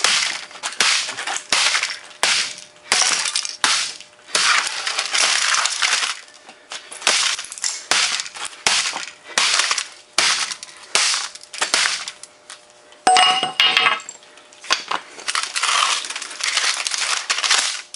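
Repeated hammer blows smashing the plastic case of a Compaq Presario F500 laptop lying on a concrete floor, about two sharp cracking impacts a second.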